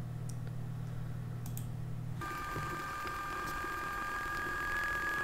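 A steady low hum with a couple of faint mouse clicks. About two seconds in it cuts to electronic, synth-like music with steady high tones, coming from a short video playing on the computer.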